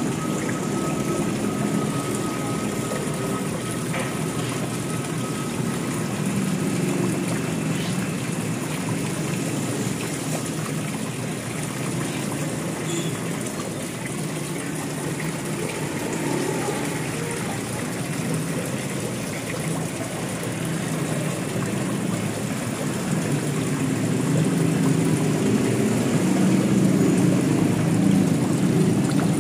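Water from a small cement garden waterfall pouring steadily into its pond, a continuous low splashing.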